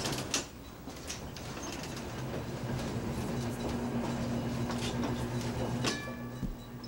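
PTC nearside streetcar 6618 under way, heard from the motorman's platform: a steady low hum with scattered clicks and rattles. About six seconds in a sharp metallic clank rings briefly as part of the hum stops.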